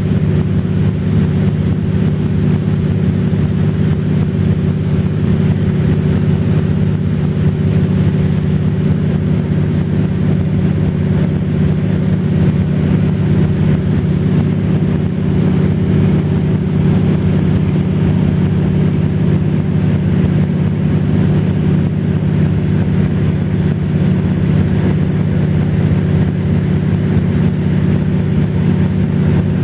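Engine and propeller of a high-wing light aircraft droning steadily in cruise, heard inside the cabin, with an even low hum that holds constant pitch and level throughout.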